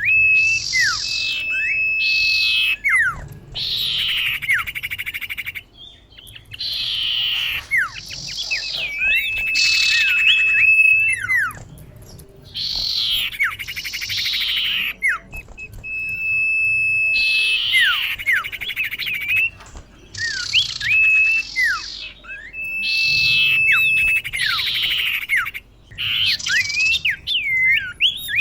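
Female common iora (cipoh) calling, the call used to lure males: a long level whistle, curving whistled notes and harsh downward-sweeping rasps, the same phrase repeating about every four to five seconds.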